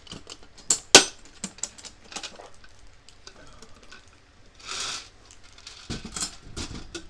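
Metal ammo cans and gear being handled and shifted inside a steel gun safe: a run of clicks and clanks, the sharpest about a second in, a short scrape near five seconds, and low knocks and thuds near the end.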